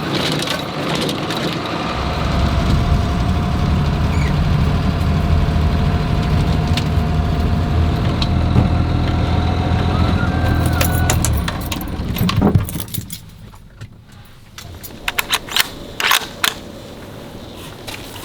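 A vehicle's engine running with a steady low drone that stops about twelve seconds in. A run of sharp clicks and clinks follows near the end, like keys or gear being handled.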